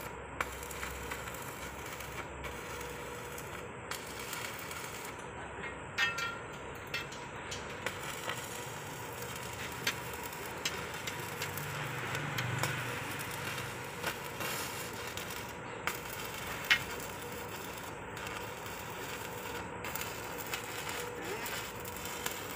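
Electric arc welding on a steel barrier: a steady crackling hiss from the arc, with scattered sharper pops.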